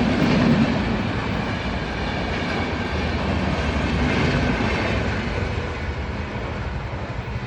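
Doon Express passenger train running through the station at full speed: a dense rumble and rattle of wheels on the track that eases off slightly toward the end.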